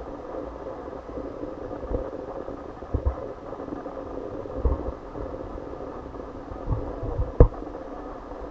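Steady hum of indoor background noise, with a few low thuds and one sharper knock about seven seconds in.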